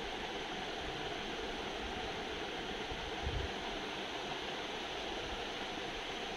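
Steady hiss-like background noise, with a brief low bump about three seconds in.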